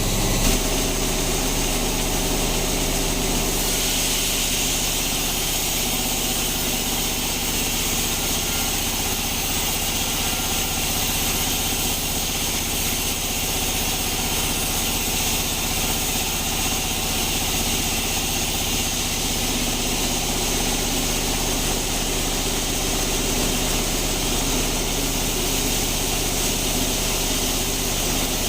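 Sawmill bandsaw running steadily with a constant machine hum and a high hiss that grows louder about four seconds in.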